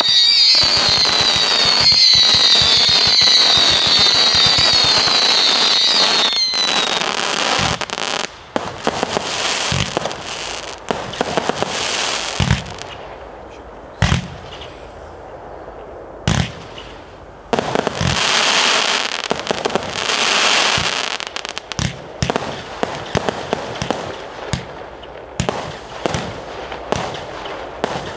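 Weco Beatmania Category 2 compound firework cake going off. For the first several seconds there is a run of repeated falling whistles over a dense crackle. After that come many separate sharp bangs, with longer crackling bursts between them.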